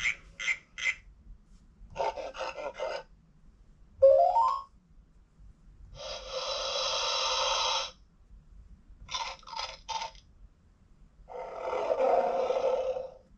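LeapFrog 100 Animals Book electronic toy playing a string of short recorded animal sound effects through its small speaker. Quick chattering calls come at the start and again around nine seconds in, with a rising squeal about four seconds in, a longer call of about two seconds from six seconds, and a roar-like call near the end.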